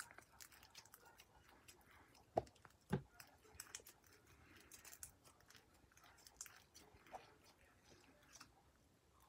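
Clear homemade slime being squished and stretched between the fingers: faint sticky clicks and squelches, with two louder pops about two and a half and three seconds in.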